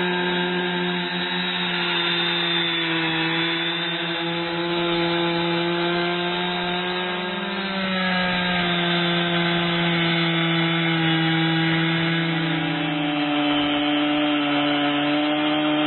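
Two-stroke chainsaw running at full throttle under load, ripping lengthwise through a log in an Alaskan mini mill. The engine note holds steady, sagging slightly about halfway and again near the end as the chain bites deeper.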